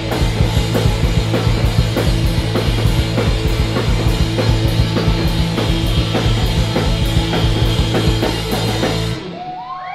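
Live rock band playing loudly, with driving drum kit and distorted electric guitar, then stopping abruptly on a final hit about nine seconds in. Right after the stop, the crowd starts to whoop and cheer.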